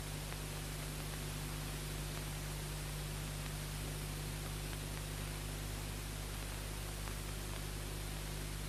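Steady hiss with a low hum underneath, the background noise of an old film soundtrack, with no distinct sounds in it.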